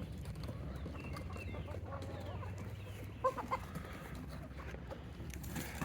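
Chickens clucking faintly, with a few slightly louder short calls about three seconds in.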